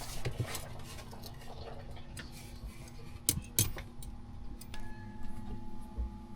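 Scattered light clicks and taps of tools and hardware being handled while the old water maker parts are taken apart, with a few sharper knocks about three and a half seconds in, over a steady faint hum.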